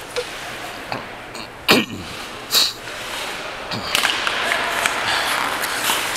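Ice hockey play on the rink: a few sharp clacks of sticks and puck in the first half, then a steady scraping hiss of skate blades on the ice from about four seconds in.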